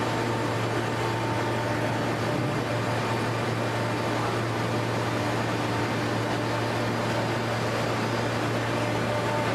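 Industrial baler's motor and hydraulic pump running with a steady low hum and hiss.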